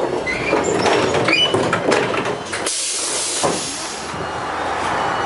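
Soviet LM-68M tram running, with a few short high squeals, then about three seconds in a sharp hiss of compressed air lasting about a second before the steady running noise resumes.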